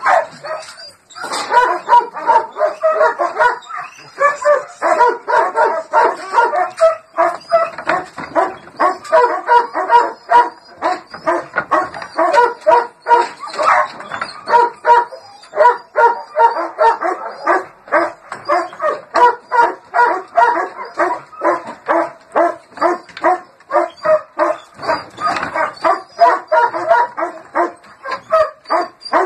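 Belgian Malinois barking rapidly and without letup, about two to three barks a second, starting about a second in.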